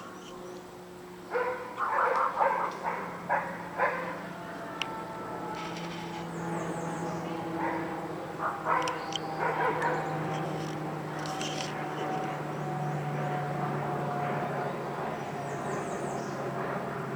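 A dog barks in a quick run of about seven barks in the first few seconds. Then a steady engine drone from a passing vehicle or aircraft takes over, with faint high bird chirps now and then.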